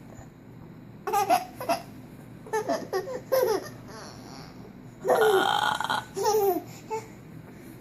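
Short bursts of laughter with falling pitch. About five seconds in comes a longer, rougher vocal noise, then one more short laugh.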